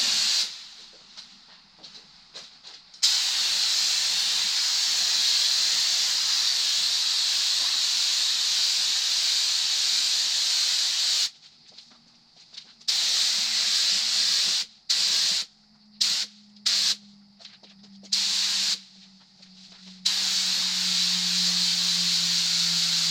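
Compressed-air paint spray gun spraying the final colour coat on a car door. An even hiss runs for about eight seconds, then comes in several short trigger bursts, then runs again for about four seconds.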